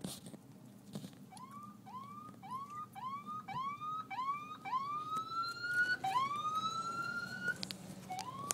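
Emergency vehicle siren sounding in short rising whoops about twice a second, switching to two longer rising sweeps partway through, then back to short whoops near the end.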